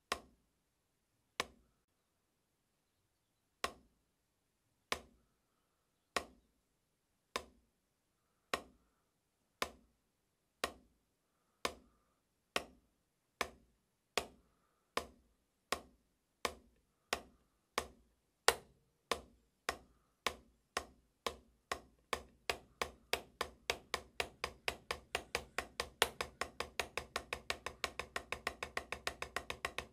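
Wooden drumsticks striking a practice pad in single strokes with alternating hands. The hits start slow, about one every second and a half, and speed up steadily until several come each second near the end: an acceleration exercise.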